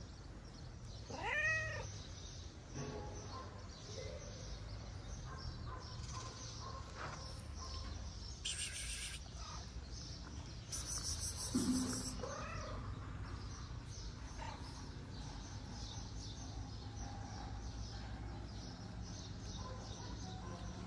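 Stray cat meowing twice, about a second in and again around the middle, over faint steady street background.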